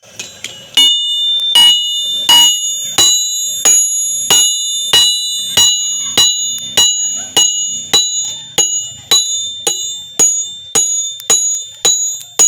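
Blacksmith's hammer striking steel on an anvil, forging a knife blade: a few light taps, then steady hard blows about three every two seconds. Each blow rings with a high metallic tone that carries between strikes.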